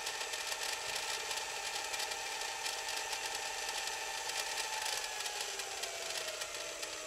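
Hitachi VT-S1000 S-VHS VCR's tape transport whirring as it rewinds a VHS cassette at very high speed, with the tape unloaded from the head drum and running straight between the reels. The whine holds steady, then falls in pitch over the last two seconds or so as the deck automatically slows the rewind near the start of the tape to avoid snapping it.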